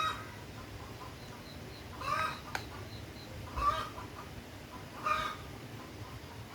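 Chicken clucking: short calls repeated roughly every one and a half seconds.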